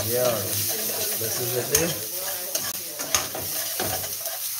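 Chopped vegetables sizzling as they sauté in a stainless-steel pan over a gas flame, stirred and scraped with a metal spoon. A few sharp clinks of the spoon against the pan stand out above the steady sizzle.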